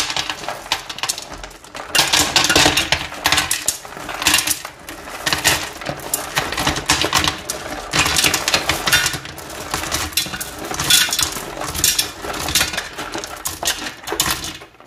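Handfuls of rough stones dropped into a pressure cooker pot, rattling and clattering against the metal and against each other, again and again.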